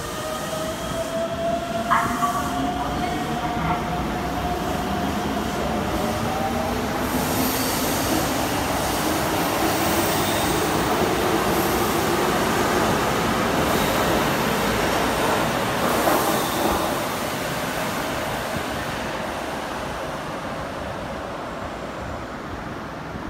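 Keikyu 600 series electric train pulling out of an underground station. The motors give a whine that rises in pitch as it gathers speed, over the growing rumble and clatter of wheels on rail. The sound builds to its loudest about two-thirds of the way through, then fades as the last car runs into the tunnel.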